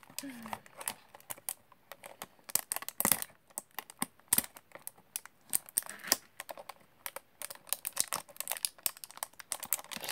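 Fingernails picking and scratching at the tight plastic shrink-wrap on a small cardboard blind box, giving irregular crinkles and sharp clicks.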